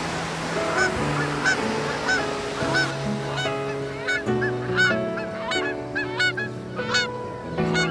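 Birds honking again and again in short arching calls, growing more frequent about halfway through, over sustained chords of background music.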